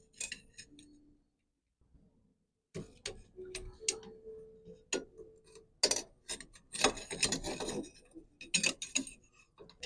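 Irregular metal clicks and taps from hands and tools working on a bicycle's crank and chainring, starting about three seconds in after a quiet stretch.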